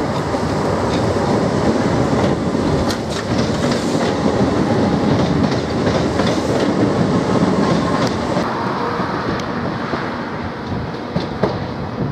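Southern Class 377 Electrostar electric multiple unit running past, a steady rumble of its wheels on the track with sharp clicks as they cross rail joints and points, most around three seconds in and again near the end.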